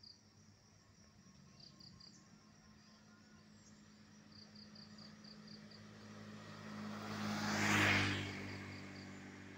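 A motorcycle approaching and passing close by: the engine hum and tyre noise build slowly, peak about eight seconds in, then fade. Insects chirp in short trills in the background.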